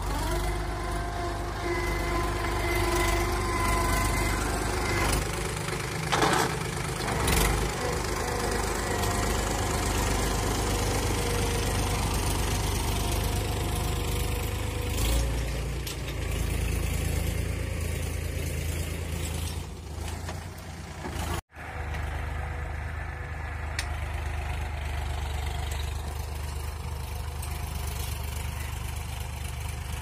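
Farm tractor's diesel engine running steadily as it pulls a tine cultivator through the soil, with a brief gap about two-thirds through.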